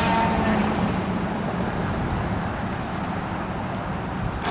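Radio-controlled speedboat's motor whine falling away just as the boat comes off the throttle, leaving steady wind and water noise as the boat sits on the water.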